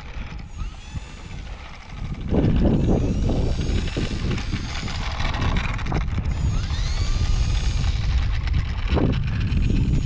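Strong wind buffeting the microphone of a camera mounted on an E-flite Valiant RC plane, growing much louder about two seconds in. Behind it the plane's brushless electric motor gives a thin whine that rises and falls in pitch a couple of times.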